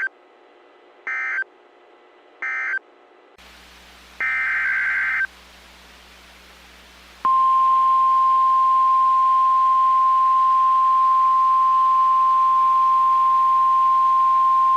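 Emergency Alert System signalling on NOAA Weather Radio: three short warbling digital data bursts, the SAME end-of-message code closing the previous warning, then about four seconds in one longer data burst. About seven seconds in the 1050 Hz warning alarm tone starts, a loud steady single-pitched tone announcing the next warning, and carries on.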